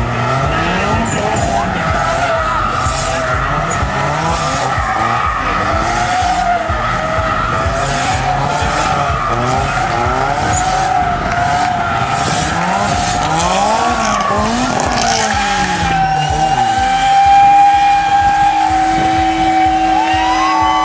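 Two drift cars sliding in tandem, their engines revving up and down over and over while the tyres squeal. After about sixteen seconds the squeal settles into a long, steady note.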